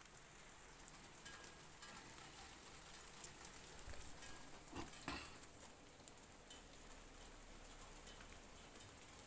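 Faint rain pattering, with a couple of knocks from the phone being handled about halfway through.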